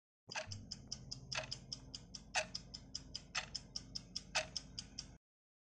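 Clock-ticking countdown sound effect: quick, even ticks about five a second, with a louder tick once a second, over a faint low hum. It runs for about five seconds and cuts off suddenly, marking the quiz's answer time running out.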